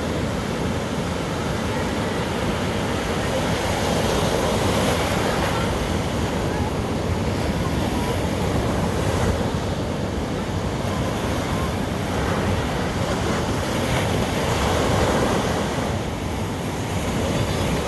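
Sea surf washing on a sandy beach, swelling and easing, with wind buffeting the microphone.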